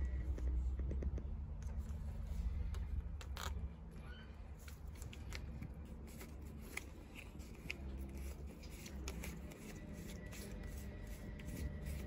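Scattered small clicks and scrapes as the plastic coupling of a washing machine inlet hose is handled and screwed onto a brass tap's threaded outlet, over a steady low rumble.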